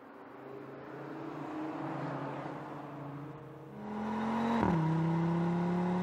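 Audi RS 3's turbocharged 2.5-litre five-cylinder engine accelerating. It is faint at first, then loud from about four seconds in. Near the end the pitch drops sharply at an upshift, then climbs steadily again.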